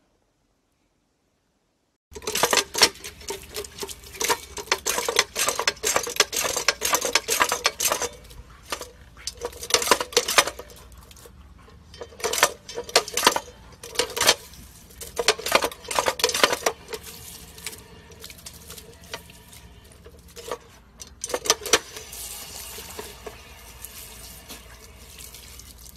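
A husky working a step-on dog water fountain: water spurts and splashes in irregular bursts each time the paw pushes the pedal, with clacks from the plastic pedal and the dog lapping at the jet. It starts suddenly about two seconds in.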